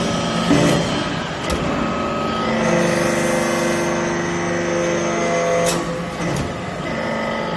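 Hydraulic metal chip baler running: a few knocks, then a steady machine hum from about a third of the way in that stops with a sharp clank near the three-quarter mark.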